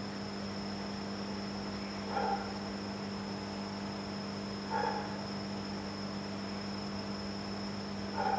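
Steady low hum with a thin high whine above it from the aquarium's running equipment, and a short soft sound repeating about every two and a half seconds, three times.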